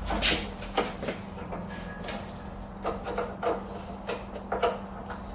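Irregular sharp clicks and light knocks, about a dozen in all, of parts being handled and fitted, over a steady low hum.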